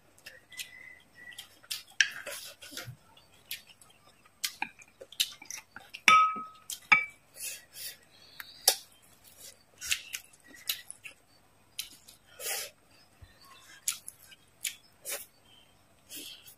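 Close-up eating sounds: chewing and crisp little crackles and clicks while fried fish is eaten. Chopsticks clink against a dish twice with a short ringing note, about six and seven seconds in.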